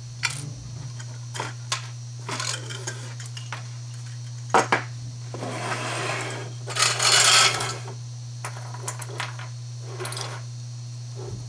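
Small plastic and aluminium parts of a motorized curtain track being handled on a wooden table: scattered clicks and taps, two sharp clicks about four and a half seconds in, then a sliding scrape lasting about two seconds, the loudest part, followed by a few more clicks. A steady low hum sits underneath.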